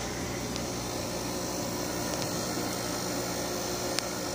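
Steady electrical hum with an even hiss from running aquarium equipment such as filters and air pumps, with a single faint click about four seconds in.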